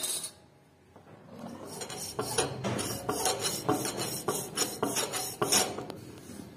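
Hand file rasping on steel in quick strokes, about three a second, with a metallic ring, starting about a second and a half in and stopping near the end.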